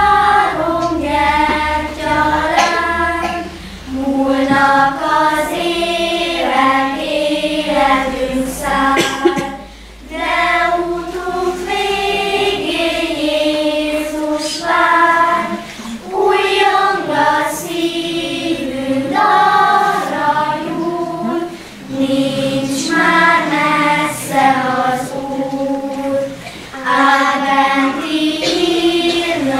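Children's choir singing in unison without instruments, the song going in phrases with short pauses for breath between them.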